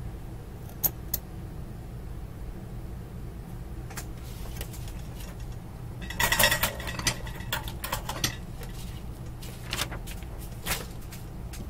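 Small clicks and taps of bench work, then a clatter of metal-on-metal clicks about six seconds in as a soldering iron is set back in its stand, followed by a few scattered clicks. A steady low hum runs underneath.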